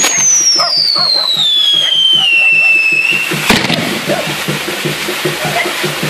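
Fireworks tower (castillo) going off: a whistling firework sounds with a falling pitch for about three seconds, then a single sharp bang about halfway through, over the hiss and crackle of showering sparks.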